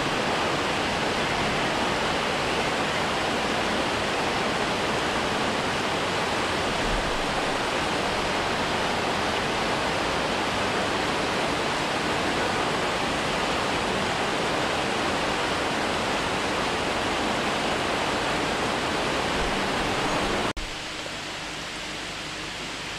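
Water pouring over a low stone weir in a shallow stream, a steady, even rushing. Near the end it cuts off abruptly to a quieter, thinner hiss.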